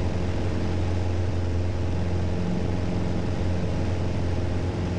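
Piper Arrow's engine and constant-speed propeller droning steadily at climb power, heard inside the cockpit as a low, even hum.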